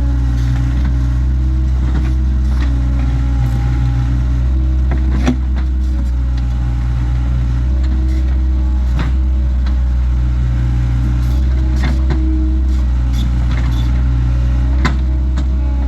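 Takeuchi TL26 skid steer's diesel engine running steadily, with scattered clanks and knocks, the sharpest about five seconds in.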